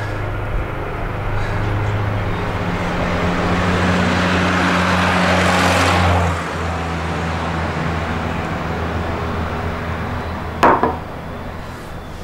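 A car passing on the road, its rush swelling for about six seconds and then cutting off, over a steady low hum. Near the end, a single sharp knock.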